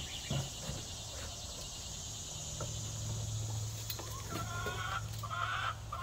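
Hens clucking, a run of short calls in the second half, over a low steady hum.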